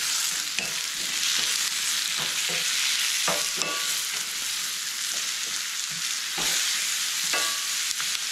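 Apple slices and chopped bacon frying with a steady sizzle in two cast-iron skillets, while a wooden spatula stirs and scrapes the apples, with a scatter of light knocks against the pan.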